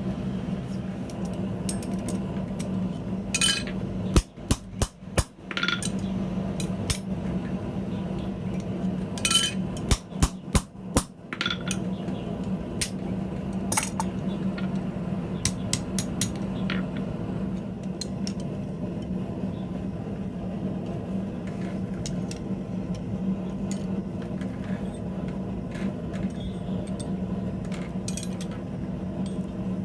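Hammer blows on steel at the anvil, coming in two short runs of strikes about four seconds in and again about ten seconds in. Lighter scattered clinks follow, over a steady low hum.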